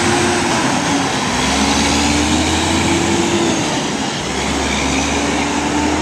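Mack truck's diesel engine pulling a loaded lowboy trailer away. Its note climbs, then drops back twice as it shifts up through the gears.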